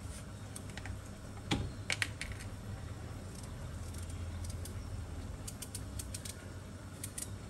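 Knife cutting raw mantaş squash into thinner slices: scattered small clicks and taps, with a louder knock about a second and a half in. A low steady hum runs underneath.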